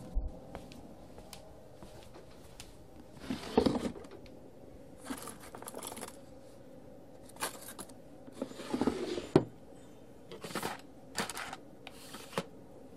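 Small objects being handled: about eight short, irregular scrapes and rustles with light clicks, over a faint steady hum.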